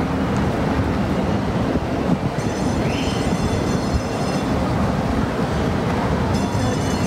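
Light rail train moving slowly over curved street track with a steady rumble. Its steel wheels squeal high on the curve twice, first about two and a half seconds in for a couple of seconds, then again near the end.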